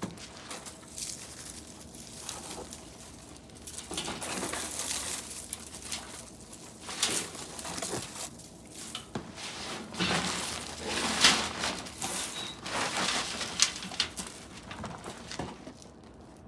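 Potting soil and potatoes being dumped out of a grow bag and sifted through by hand: irregular rustling, scraping and crumpling, busiest about two-thirds of the way through.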